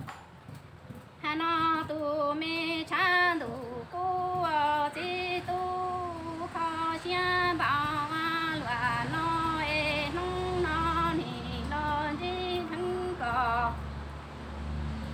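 A woman singing Hmong kwv txhiaj, the unaccompanied sung courtship poetry, in long held notes that waver and slide between pitches, phrase after phrase with short breaths between. A low hum sits beneath the voice from about halfway.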